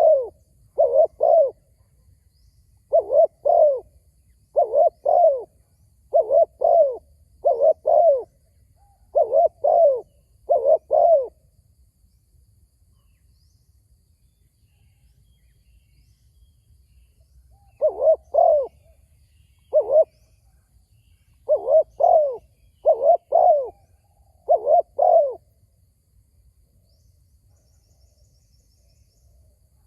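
Spotted dove cooing: short arched coos in quick pairs and threes, repeated every second or two, with a pause of about six seconds in the middle before the cooing resumes.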